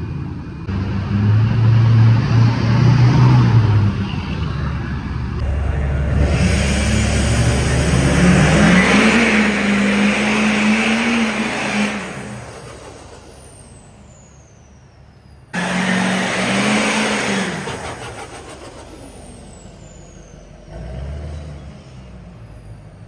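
Lifted pickup trucks revving and accelerating past, one after another. The engine pitch climbs and falls through the loudest stretches. The sound cuts off suddenly a little past halfway and another truck starts revving.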